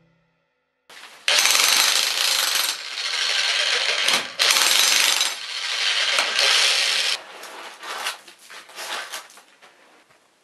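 Handheld demolition hammer chiselling through a concrete stemwall footing to punch a pipe chase, running loud in stretches of a second or more with short pauses between. From about seven seconds in it gives way to scattered lighter knocks and clinks.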